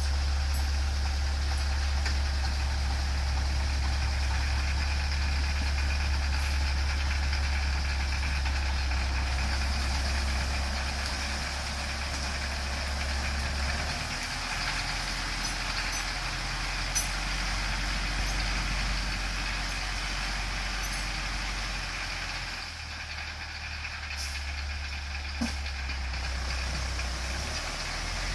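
Belarus MTS-82 tractor's four-cylinder diesel engine running steadily. Its speed drops about halfway through, picks up again a few seconds before the end, then falls back.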